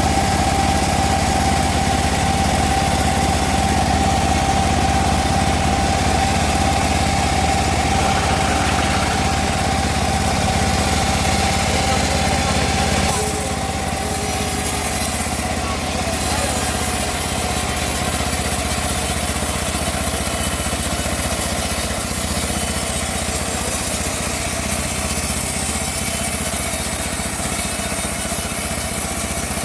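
Homemade bandsaw mill running steadily while sawing teak wood: a continuous machine drone with a steady high whine that drops away about 13 seconds in.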